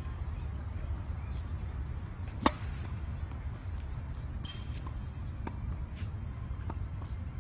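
Tennis ball impacts on an outdoor court: one sharp pop about two and a half seconds in, then a few faint clicks later on, over a steady low rumble.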